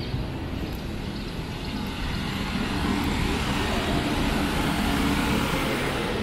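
A motor vehicle passing on the street: its engine and tyre noise grows louder from about two seconds in and is loudest near the end.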